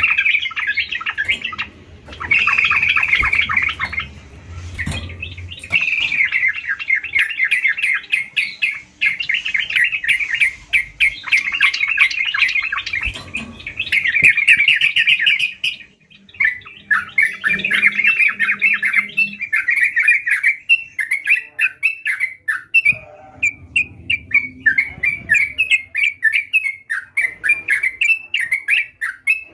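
Yellow-vented bulbul (trucukan) singing vigorously: fast chattering runs of bubbly notes with short breaks between bouts, then more spaced, separate phrases in the second half.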